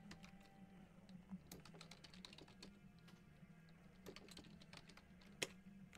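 Faint computer keyboard typing: scattered soft key clicks, with one sharper click about five and a half seconds in.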